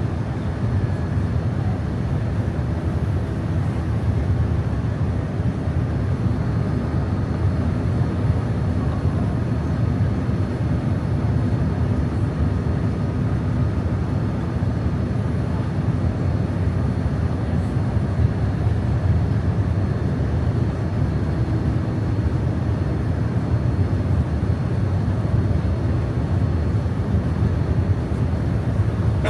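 Steady low rumble of a Boeing 787-9 airliner in flight, heard from inside the passenger cabin.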